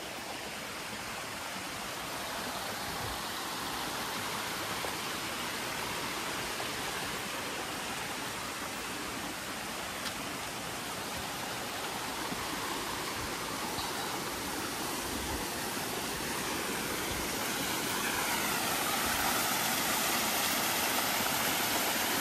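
Running water of a stream, a steady rushing that grows louder toward the end.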